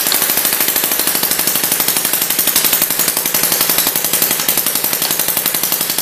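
Model hit-and-miss engine (Duclos 'Odds and Ends' design) driving a model muley sawmill through an engaged cone clutch, belts and pulleys running. The result is a rapid, steady mechanical clatter, many knocks a second.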